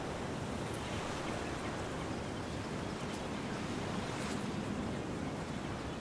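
Ocean surf washing onto a beach, a steady rushing noise.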